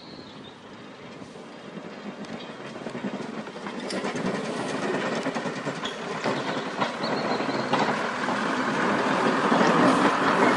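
Class 101 diesel multiple unit drawing near and passing close by, growing steadily louder, its wheels clicking over the track.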